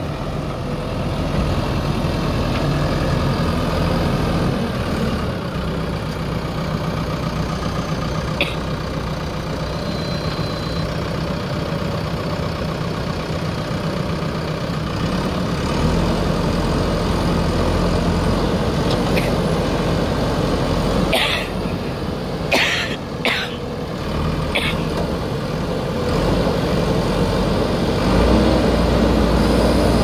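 JCB 3DX Super backhoe loader's diesel engine running steadily as the machine works in mud. Several short, sharp, higher-pitched noises come about two-thirds of the way in.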